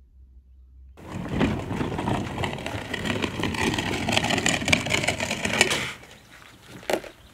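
A plastic Feelfree Moken 12.5 fishing kayak's hull scraping and crunching over gravel as it is dragged, loud and dense for about five seconds before it stops suddenly as the kayak is lifted. About a second later comes a single short knock as the bow is set onto the truck's bed extender.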